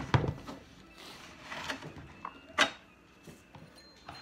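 Handling knocks and scraping on a partly disassembled Husqvarna 272 XP chainsaw as it is gripped by its handlebar and picked clean: a loud knock just after the start and a single sharp click about two and a half seconds in, with light rubbing between.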